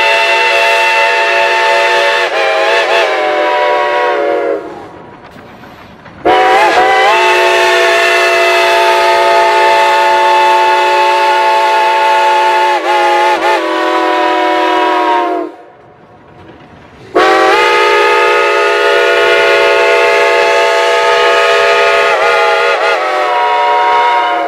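Shay geared steam locomotive's chime steam whistle blowing long blasts. One ends about four seconds in, then two long blasts of roughly nine and seven seconds follow after short pauses. Each bends in pitch as it opens and closes.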